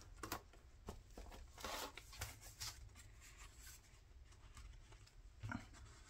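Faint rustling and soft crackles of paper and card being handled and pressed down, in a few short, scattered strokes, with a brief low murmur-like sound near the end.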